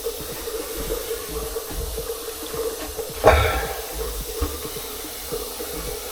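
Water running steadily from a bathroom faucet into the sink during a leak test of a newly replaced pop-up drain. A single sharp knock about three seconds in, ringing briefly.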